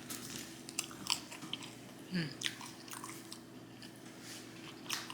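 Close-miked eating: a person chewing and biting food, with scattered soft mouth clicks and smacks. A brief low voice-like sound comes about two seconds in.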